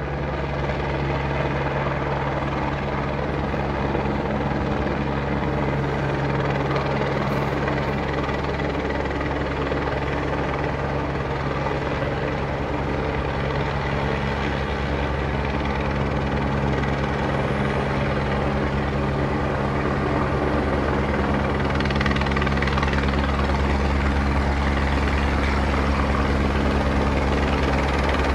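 Helicopter in flight, its steady rotor and engine noise growing gradually louder as it approaches, carrying a grand piano slung beneath it on a long line.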